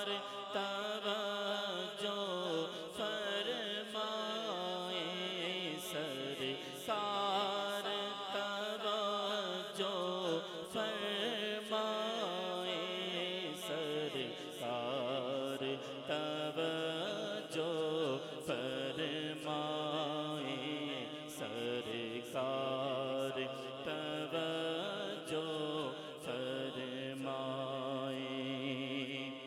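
A man's voice singing an Urdu naat (devotional chant to the Prophet) into a microphone, unaccompanied, in long, wavering, melismatic lines.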